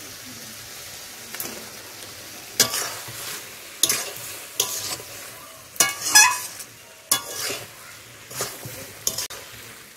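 Mutton and fried potatoes sizzling in a metal karahi as a metal spatula stirs them, scraping and knocking against the pan about once a second. This is the sautéing (koshano) stage of a mutton curry, before water is added.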